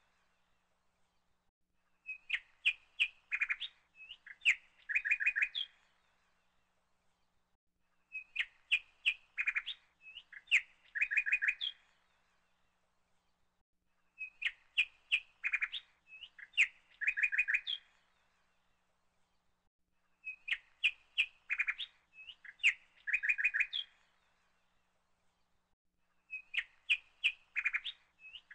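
Bird chirps played as a repeating loop: the same four-second burst of chirps comes back about every six seconds, with short quiet gaps between.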